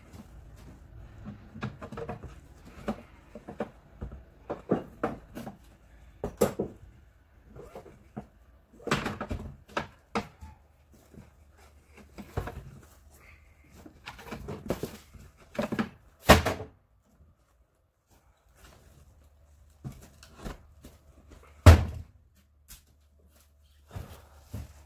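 Cardboard boxes and a wooden pallet being shifted and set down in a pickup truck bed: an irregular run of knocks and thumps, with two louder bangs, one past the middle and one near the end.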